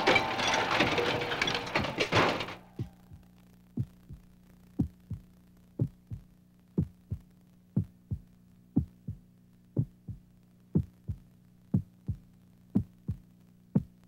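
A loud, noisy din cuts off abruptly about two and a half seconds in. A heartbeat sound effect follows: slow lub-dub double thumps about once a second over a steady low hum.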